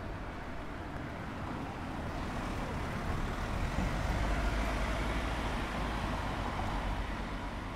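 A van driving past close by, its engine and tyre noise swelling to a peak about four seconds in, then fading away.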